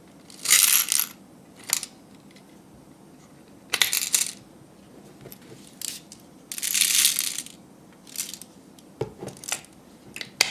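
Small mint candies rattling against the plastic of a toy vending-machine candy dispenser as they drop into its tray, in several short bursts. The longest bursts last about a second.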